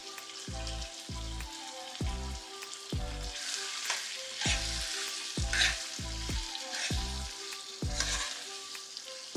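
Shrimp, sausage and vegetables sizzling in a hot pot as they are stirred. Background music with a steady beat plays over it.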